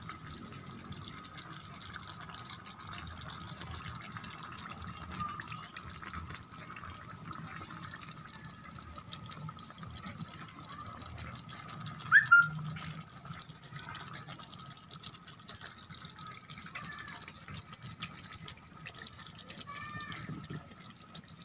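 Pork humba simmering in a frying pan: the thick soy-and-vinegar sauce bubbling with many small pops and crackles. A faint steady whine runs behind it, and there is a brief louder chirp about twelve seconds in.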